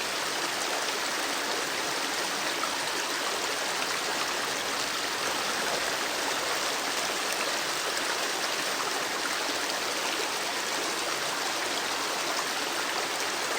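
Steady, even rushing hiss with no breaks or changes.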